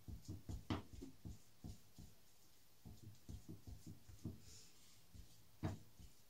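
Wooden spatula stirring peanut butter into thick whipped cream in a glass bowl: soft, dull thuds two or three a second, with two sharper knocks, one about a second in and one near the end.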